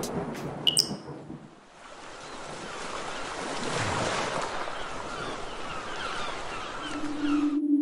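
Sound-effect ocean surf: waves washing in, swelling to a peak about four seconds in and cut off abruptly near the end. A brief high plink like a drip comes under a second in, and a steady low hum comes in shortly before the surf stops.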